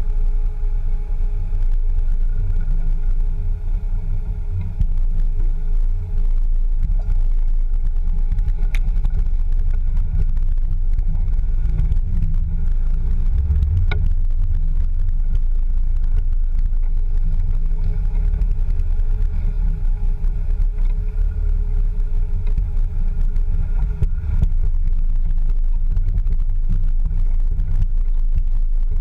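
Land Rover Discovery 2 crawling over rocky off-road ground: a steady low engine rumble, with one sharp knock midway through.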